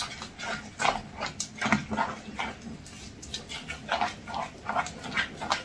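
Glue slime being stirred with a spatula in a glass bowl as contact lens solution and baking soda activate it: irregular wet, sticky squelches several times a second, with the spatula scraping the glass. The slime is starting to pull away from the sides of the bowl.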